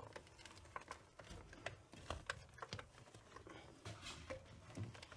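Faint, irregular clicks and light taps of hand tools and parts being handled while a chair's casing is taken apart.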